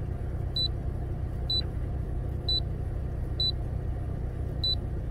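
Five short, high beeps about a second apart from the keys of a Blue-Point EECR1A handheld OBD2 code reader, over the steady low hum of a Dodge van's engine idling.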